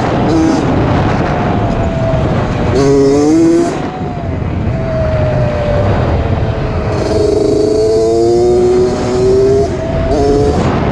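Suzuki RM60 two-stroke mini dirt bike engine under riding, revving up sharply about three seconds in and again for a couple of seconds near the end, dropping back between, over a steady low rumble.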